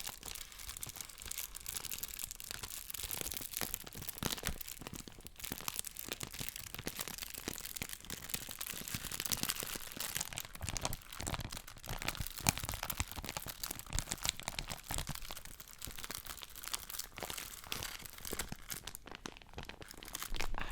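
Paper being crumpled and crinkled close to the microphone: a continuous dense crackle of small snaps, with a few louder crunches.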